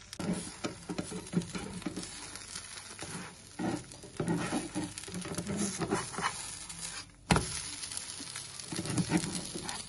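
Vegetable dosa sizzling in oil in a nonstick frying pan as it crisps, with a spatula scraping under it and one sharp knock about seven seconds in.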